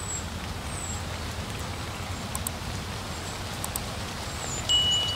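Outdoor ambience: a steady low rumble with a noise haze, faint short high chirps and a few clicks. A steady high-pitched beep starts near the end.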